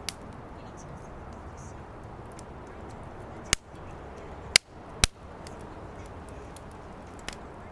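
Firewood burning in a fire pit, crackling over a steady low hiss, with several sharp, loud pops: three in the middle and one at the end.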